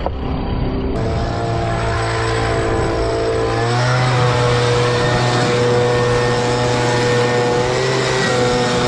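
Stihl petrol leaf blower running steadily, blowing air into the gaps under volcanic boulders to flush out a mink. The throttle is opened up a few seconds in, and the engine note steps up and holds at the higher pitch.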